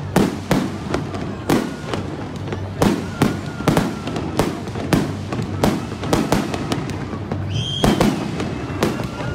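Aerial fireworks bursting overhead: an irregular string of sharp bangs, one or two a second, with a gap of about a second shortly before the end.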